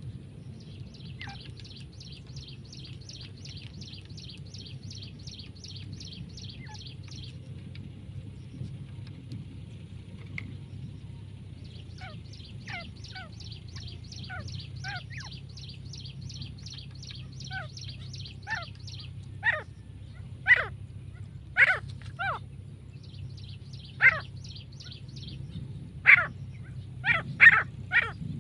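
Female grey francolin calling: fast trills of short high notes in several runs, then loud, sharp single calls that come more and more often toward the end, over a steady low hum.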